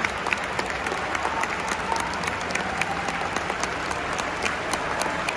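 Football stadium crowd applauding their team after the final whistle, a steady mass of clapping with sharp hand claps close by standing out from it.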